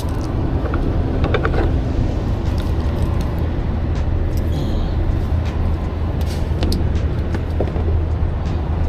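A vehicle engine runs with a steady low hum, while cargo straps and their buckles are unfastened with scattered clicks and rattles.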